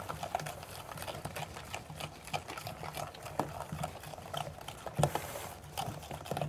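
A stirring utensil scraping and clicking in a mixing bowl in quick, irregular strokes as cocoa powder, baking powder, baking soda and salt are stirred into the mixture, with one louder knock against the bowl about five seconds in.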